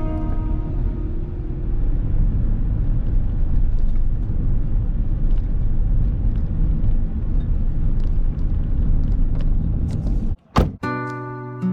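Steady low rumble of a car on the move, road and engine noise. A sharp knock comes shortly before guitar music starts again near the end.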